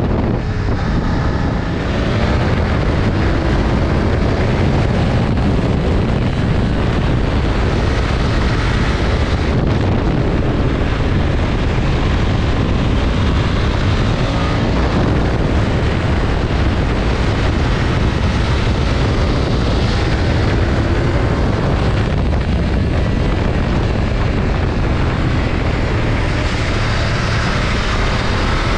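BMW F900XR motorcycle's parallel-twin engine running, its note rising and falling now and then, under a steady wind rush on the microphone.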